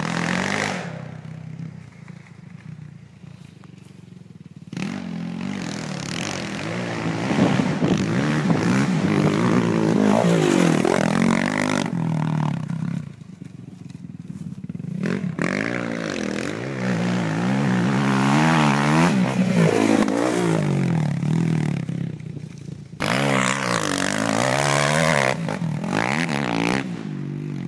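Dirt bike engine revving hard and shifting through the gears as it rides a lap, its pitch climbing and dropping again and again. It fades for a few seconds near the start and comes back loud about five seconds in. It dips briefly twice more as the bike passes.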